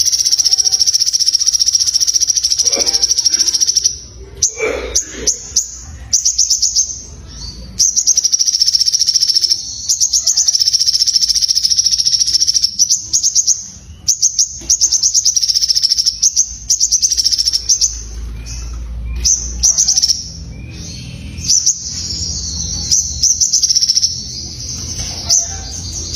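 Sogon songbird singing energetically: long runs of a rapid, high-pitched trilling chatter, broken by short pauses.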